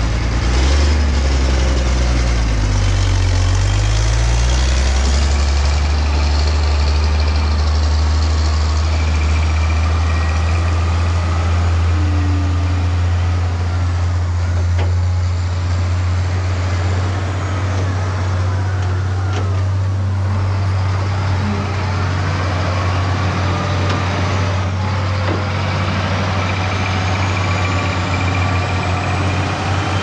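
Heavy diesel engines of a Caterpillar 966F wheel loader and a dump truck running at close range. The low drone shifts in pitch during the first few seconds, then holds steady.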